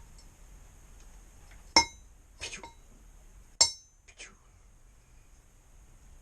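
Metal parts of a home-made crucible and its lifting handle knocking together: four sharp metallic clinks, each ringing briefly, the first and third loudest.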